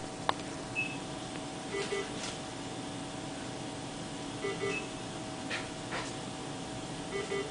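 Short double electronic beeps repeating about every two and a half seconds over a steady low hum, with a few faint clicks between them.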